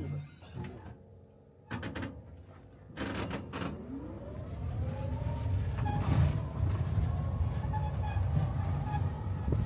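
Island shuttle bus moving off: a few knocks, then from about three seconds in a motor whine that rises in pitch and levels off over a growing rumble as the bus gathers speed.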